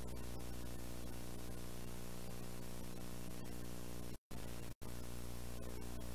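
VHS playback noise: steady tape hiss over a low electrical hum, with scattered faint clicks. The sound drops out completely twice, briefly, a little past four seconds in.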